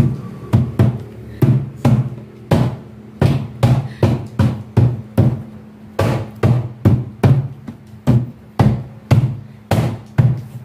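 Background music with a steady drum beat over a low bass line.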